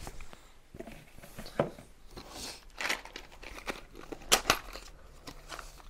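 Paper and plastic packaging rustling and crinkling as it is handled, with scattered sharp clicks, the loudest about four and a half seconds in.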